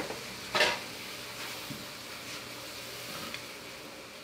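Meat sizzling on a grill over glowing charcoal embers, with one brief clatter about half a second in.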